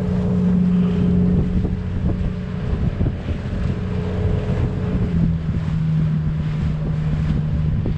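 Pump boat (bangka) engine running steadily under way, its pitch dropping a little about five seconds in as the throttle eases, with wind buffeting the microphone.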